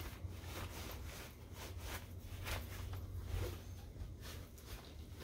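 Scattered rustles and light knocks from hands working on a Wonderfold W4 Elite stroller wagon's fabric seat and metal frame, over a steady low rumble.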